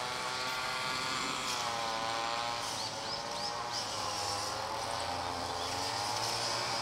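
A motor running steadily, its pitch slowly wavering up and down, with a few short high chirps about three seconds in.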